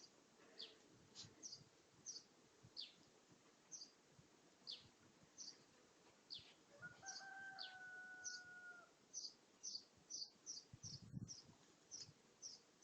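Faint birdsong: many short, high, falling chirps repeating every half second or so, with one drawn-out call held for about two seconds just past the middle.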